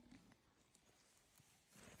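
Near silence: faint background hiss, with one tiny tick just after the start.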